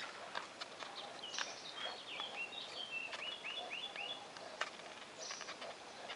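A bird calling: a run of short, falling high chirps from about a second and a half in until about four seconds, over scattered sharp clicks.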